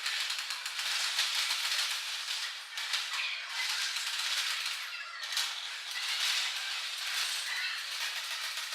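Airsoft gunfire: rapid shots running together into a continuous clattering rattle, with a brief dip about two and a half seconds in and again near five seconds.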